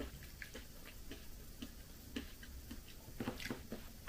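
Faint, irregular soft clicks of a person eating: chewing and a fork touching the plate, with a short cluster of clicks a little past three seconds in.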